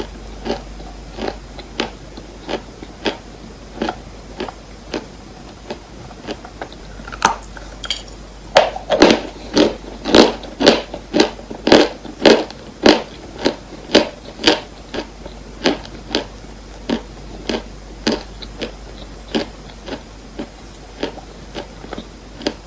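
Dry chalk being bitten and chewed: a steady run of crisp crunches about every half second, louder and closer together from about nine to fifteen seconds in.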